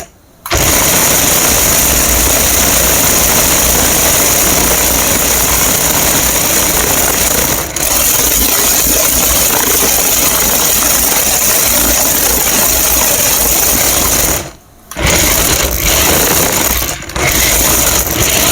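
A toy remote-control racing car's small electric motor and plastic gearbox running with a loud, steady buzzing whir. It stops briefly at the start and about fifteen seconds in, then runs again.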